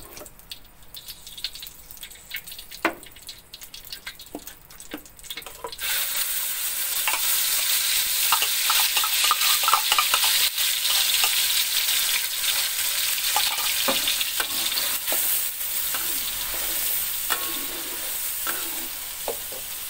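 A spoon clicking and scraping in a glass jar, then about six seconds in ground chili spice paste hits hot oil in a wok and sizzles loudly, easing a little near the end, with a metal spatula scraping as the paste is stirred. This is the paste being sautéed, the first stage of cooking balado.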